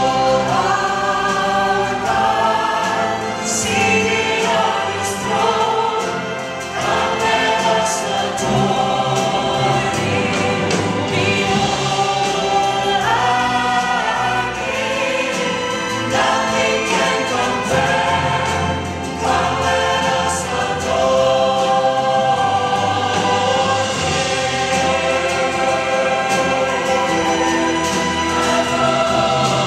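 Large mixed choir singing a hymn in full harmony, with an orchestra accompanying.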